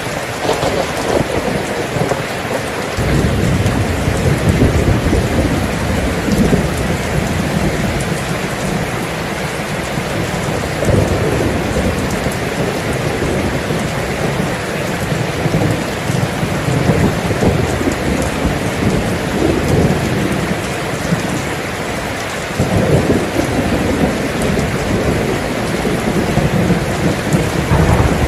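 Steady heavy rain with rolls of thunder rumbling over it, one starting about three seconds in and others around eleven and twenty-three seconds.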